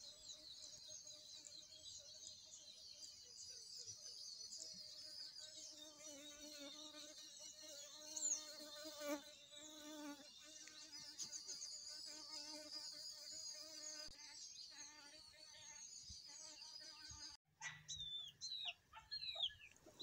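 Faint outdoor ambience: an insect buzzing, steady high chirping, and a few short falling chirps near the end.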